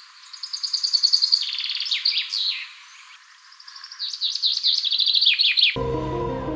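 A songbird singing two phrases of rapid trills and quick down-slurred whistles, thin-sounding with no low end. Near the end the song cuts off suddenly as soft ambient music begins.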